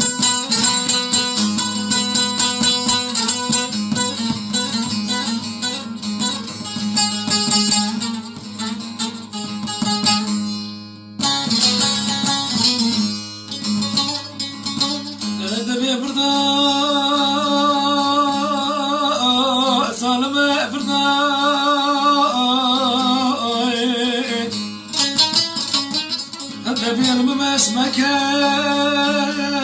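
Two bağlamas (long-necked Turkish saz lutes) playing a fast plucked folk-song passage. After a short break about eleven seconds in, a man sings long, wavering held notes over the strumming.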